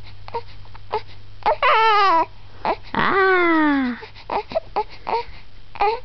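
Baby crying: two drawn-out cries, the first about a second and a half in and a longer one about three seconds in, each falling in pitch, with short brief sounds in between.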